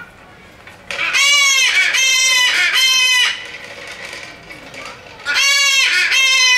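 A bird calling loudly: three calls in quick succession about a second in, then two more near the end, each rising then falling in pitch.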